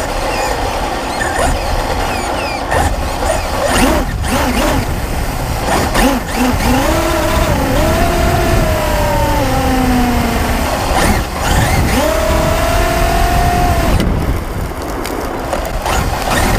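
Onboard sound of a Traxxas UDR RC truck driving over gravel, heard from a camera on its bare chassis: steady crunching and rattling from tyres and chassis, with sharp knocks from bumps. Through the middle, the brushless electric motor and drivetrain whine, rising and falling in pitch with speed.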